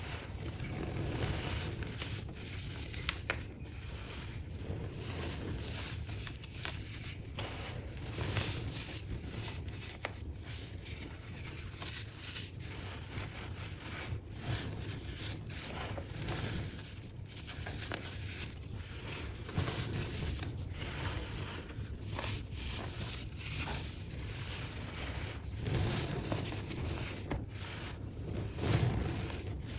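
Baking soda being crushed, played back sped up: a continuous, dense run of crunchy crackling and squeaky scraping.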